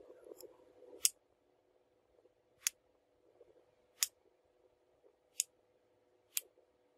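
Small steel cleaver chopping through raw chicken onto a thin wooden board: five sharp taps, about one every second or so.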